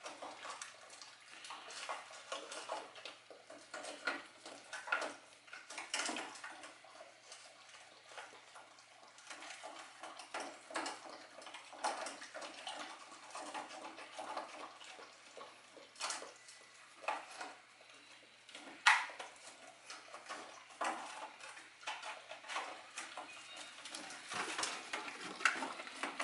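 A dog eating raw food out of a stainless steel bowl on a metal stand: irregular clinks and taps of the bowl as it chews and licks, with a few sharper knocks along the way.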